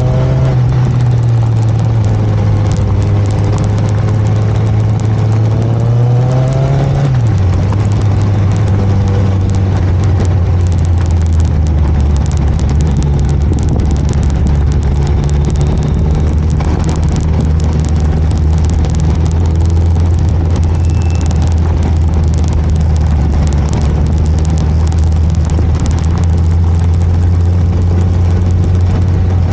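Motorcycle engine running under way, a steady drone over a constant hiss of wind. The engine note climbs slightly, then drops sharply about seven seconds in and settles lower for the rest.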